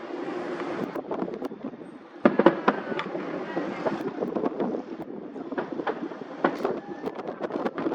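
Fireworks going off: a cluster of loud sharp bangs about two seconds in, then scattered pops and crackles over a steady background rumble.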